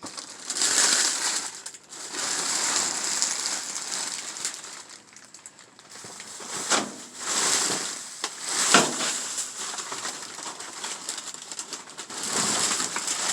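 Rustling and crinkling of discarded food and packaging being rummaged through in a dumpster, in irregular bursts, with a sharp crack about nine seconds in.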